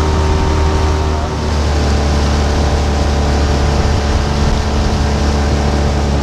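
Small outboard motor driving an inflatable dinghy, running steadily, its pitch shifting slightly a little over a second in.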